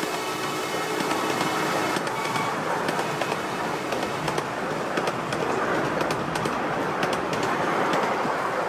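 Passenger cars of a 12-inch gauge miniature railway rolling past, a steady rushing rumble of steel wheels on rail with irregular sharp clicks as the wheels cross rail joints.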